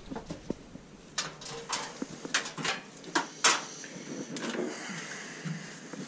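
Clatter of hard objects being handled: a run of sharp clicks and knocks, the loudest about three and a half seconds in.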